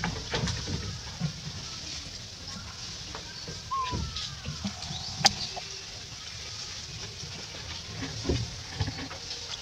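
Outdoor ambience of birds chirping steadily in the background, with light rustling and soft knocks and one sharp click a little past halfway.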